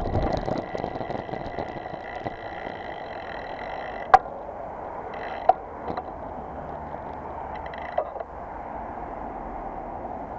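Bicycle riding slowly on a wet road, heard from a bike-mounted camera: steady tyre and wind noise, with four sharp clicks or knocks from the bike.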